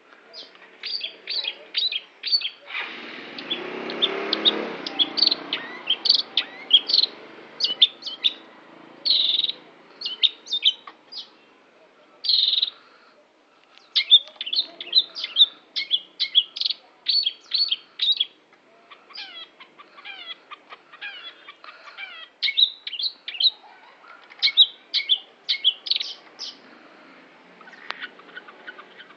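Long-tailed shrike (cendet) singing a long, varied run of short, sharp chirps and trills, with a pause of about a second in the middle. A rushing noise lasting about two seconds sits under the song about three seconds in.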